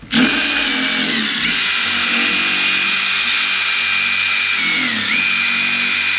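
Cordless impact driver running steadily for about six seconds, driving a screw into a wooden board. Its pitch dips briefly twice, about a second in and again near the end.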